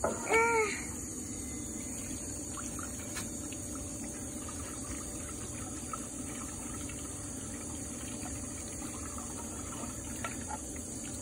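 Water trickling and dribbling from a shallow plastic tray onto wet brick steps, with small splashes, over a steady background noise.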